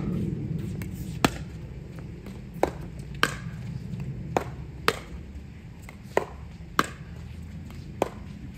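Pickleball rally: paddles striking the hollow plastic ball, about eight sharp pops at uneven intervals, some in quick pairs. A steady low rumble runs underneath.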